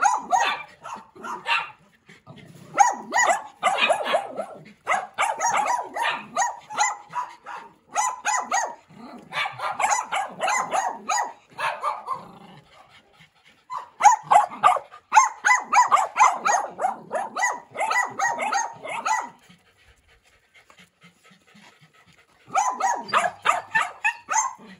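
Dogs barking in quick runs of sharp barks, several a second, broken by short pauses and a lull of about three seconds near the end.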